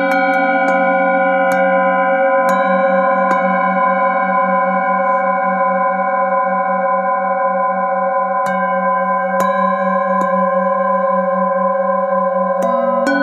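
Metal singing bowls struck one after another with a wooden mallet. Their tones ring on and overlap, with the lowest one pulsing in a slow, even wobble. The strikes come about once a second, with a gap of several seconds in the middle where only the ringing carries on.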